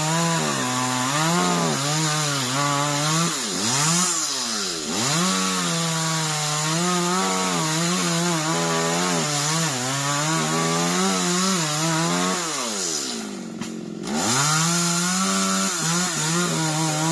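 Chainsaw cutting into a coconut palm trunk, the engine pitch sagging under load and picking up again several times. About thirteen seconds in, the engine drops away almost to idle, then revs back up.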